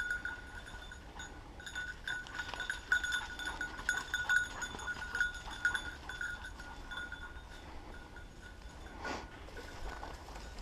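Bell on a Gordon setter's collar ringing continuously as the dog works through the undergrowth, loudest in the middle and fading toward the end, with a brief rustle of brush near the end.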